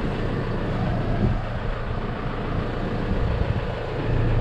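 Ursus C45 tractor's single-cylinder two-stroke hot-bulb engine running steadily at idle.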